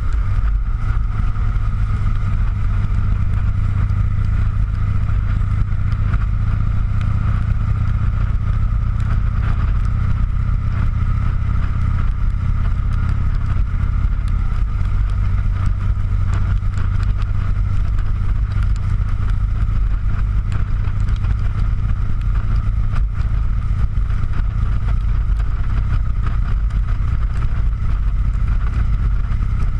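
Motorcycle engine running steadily at cruising speed, with constant wind rush and road noise on the camera's microphone.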